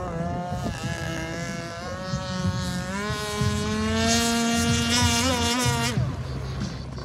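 The 26cc two-stroke gas engine of a Shockwave RC speedboat running at speed. Its pitch climbs about three seconds in, holds high, and drops off near the end.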